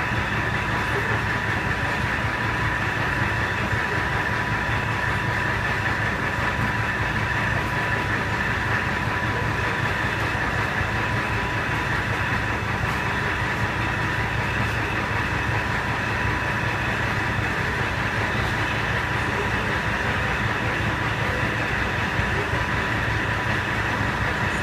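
A commuter train carriage heard from inside: a steady low rumble with a thin, constant whine over it, unchanging throughout.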